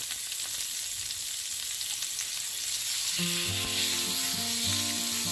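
Tuna steaks sizzling in hot olive oil in a frying pan, the wet fish making the oil spit. Background music with held notes comes in about three seconds in.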